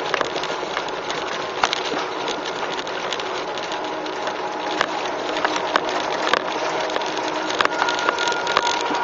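Car tyres rolling over packed snow, heard from inside the car: a steady crackling hiss with scattered sharp clicks.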